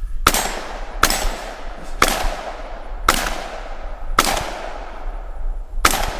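Six shots from an FN SLP Mk1 12-gauge semi-automatic shotgun, fired about one a second with a longer pause before the last, each followed by a short echo.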